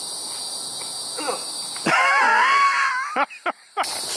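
Steady high-pitched insect chorus. About two seconds in, a loud, wavering, high cry of about a second breaks in. Then comes a brief near-silent gap with a few short clicks before the insect chorus returns.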